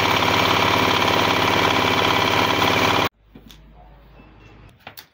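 Electric surface planer (jointer) running at full speed, a loud steady machine noise that cuts off abruptly about three seconds in. After that, a faint low hum and a few light clicks.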